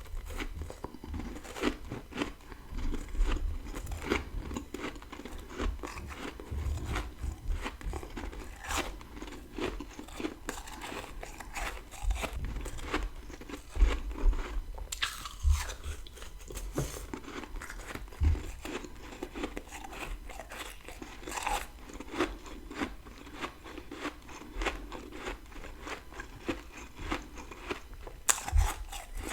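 Close-up crunching and chewing of dry freezer frost, grown with a humidifier and eaten in big bites: a dense run of sharp, irregular crackles.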